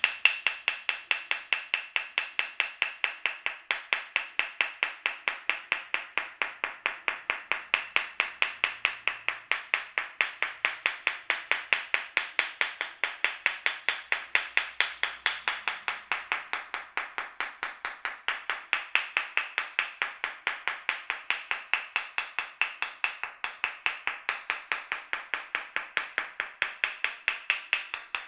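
Rapid percussive massage tapping on the head or shoulders: sharp, even taps at about four or five a second in a steady rhythm.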